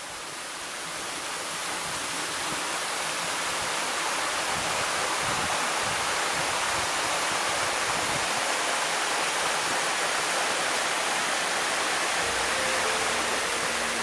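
Waterfall pouring into a pool: a steady, even rushing that fades in over the first two seconds. Soft sustained music notes come in near the end.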